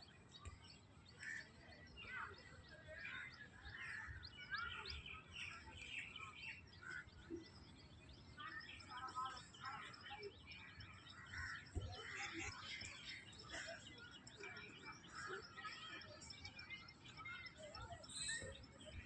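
Many small birds chirping and twittering together, a busy run of short chirps with no pause, over a faint low background rumble.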